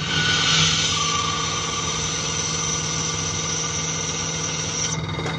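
CNC lathe drilling with a replaceable-tip (indexable tip) drill: the spindle turns the workpiece while the drill cuts into its end face. The result is a steady machine hum with high whines over a noisy cutting hiss. The highest whine cuts off near the end.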